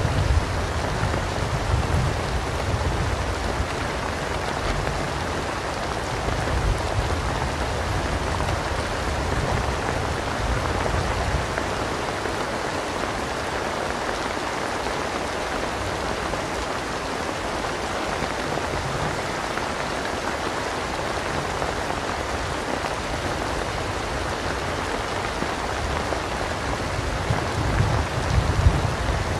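Steady rain falling, with a low rumble of thunder fading away over the first several seconds and another rumble of thunder building near the end.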